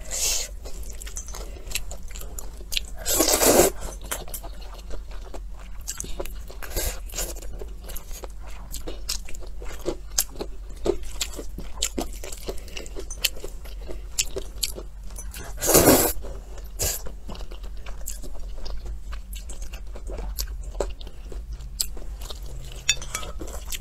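Close-miked chewing and crunching of a mouthful of stir-fried noodles with peanuts, with many small wet clicks throughout. Two louder, half-second noisy sounds, about three seconds in and about sixteen seconds in, are noodles being slurped in.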